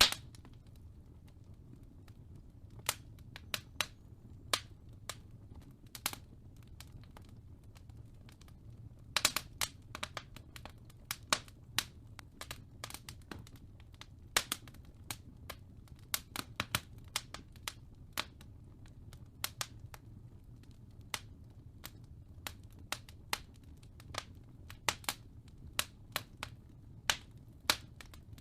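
Wood fire crackling in a fireplace: irregular sharp pops and snaps, some in quick little clusters, over a steady low rumble.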